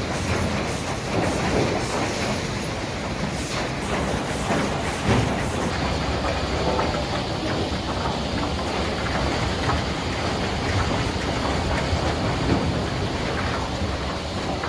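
Heavy mill machinery running with a steady clattering rattle and scattered knocks, the texture changing about six seconds in.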